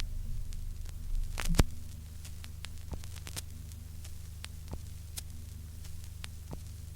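Vinyl record surface noise in a silent stretch of groove: scattered clicks and pops over a steady low hum, with one louder pop and thump about a second and a half in.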